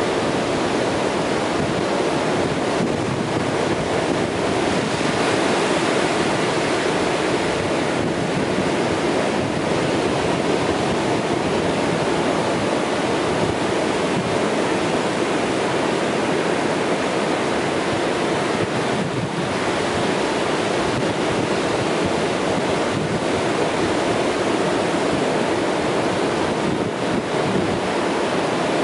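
Ocean surf breaking and washing up the beach, a steady continuous rush of water.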